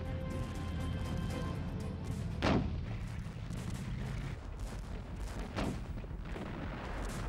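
Battle soundtrack of artillery shell explosions: two loud booms about two and a half seconds apart over a continuous low rumble, with a dramatic music score holding steady notes at the start.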